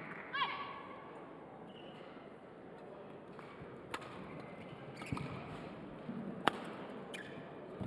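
Badminton doubles rally: racket strings striking the shuttlecock in sharp cracks, four hits in the second half, the third much the loudest. A short falling squeak sounds about half a second in.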